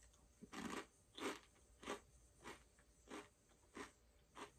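Crab-flavoured potato chips being bitten and chewed with the mouth close to the microphone: a steady, even crunch about every two-thirds of a second.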